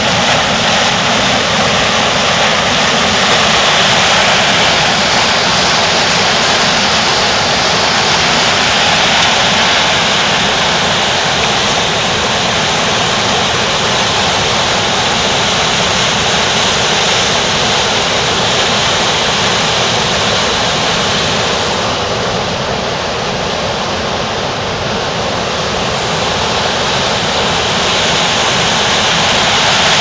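Loud, steady rush of whitewater pouring over rocks in mountain river rapids and small cascades.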